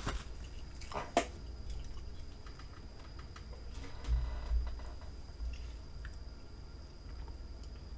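Faint room noise with a steady high-pitched whine, a sharp click about a second in and a couple of low thumps around four seconds in.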